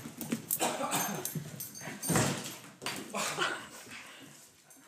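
Puppy giving short yips and whimpers in irregular bursts, the loudest about two seconds in, with scattered light knocks, fading near the end.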